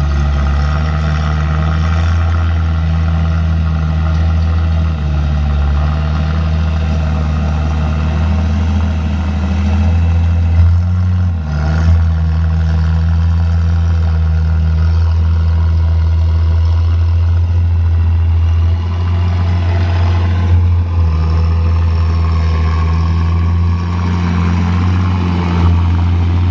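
Heavy truck's diesel engine running continuously, its pitch dipping and rising a little every few seconds. A couple of short knocks are heard about eleven and twenty seconds in.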